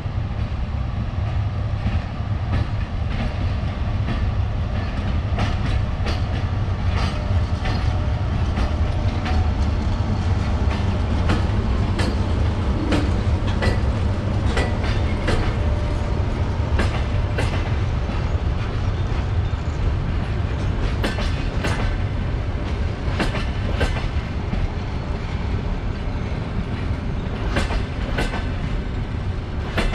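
Passenger train hauled by an EP1M electric locomotive pulling into the station: a steady low rumble, with the wheels clicking over the rail joints from a few seconds in.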